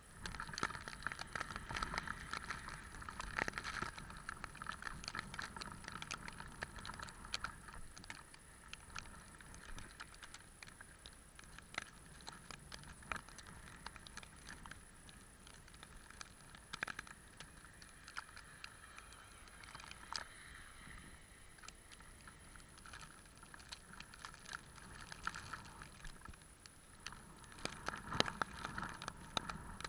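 Faint, irregular crunching and clicking of movement through fresh snow, louder near the start and again near the end, over a steady thin high whine.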